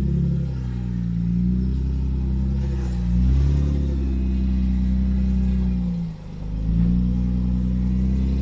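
A 4x4's engine working on a steep technical off-road track, its revs rising and falling as the throttle is fed in and eased off, with a brief dip in revs about six seconds in.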